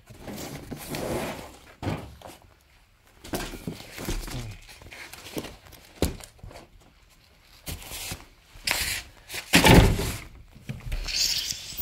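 Footsteps and the handling of a large cardboard box: scattered scrapes, rubbing and knocks, with a loud thud a little under ten seconds in as the box is laid down.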